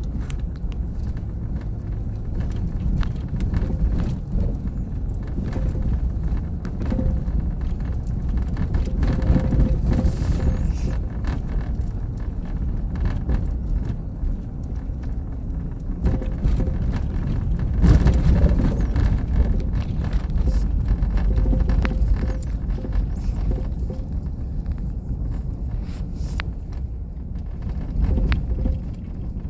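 Road noise inside a van driving over a bumpy sand road: a steady low rumble with frequent small knocks and rattles, louder at moments.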